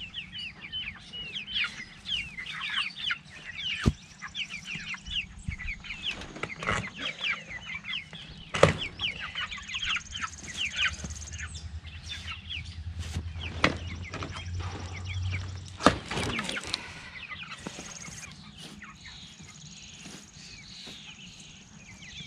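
Four-week-old meat chickens peeping continuously, many short falling chirps, thinning out near the end. Several sharp knocks, the loudest about a third of the way in and again past the midpoint, come as wheels are fitted onto the wooden chicken tractor.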